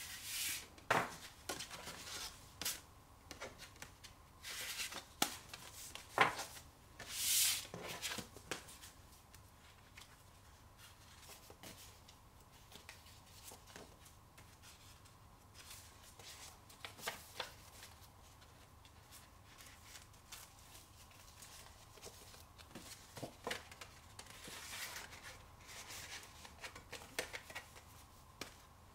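Paper handling on a wooden desk: stacks of folded card and paper are shuffled, slid and tapped down, in scattered rustles, short swishes and light knocks. Busiest in the first eight seconds or so, then sparser.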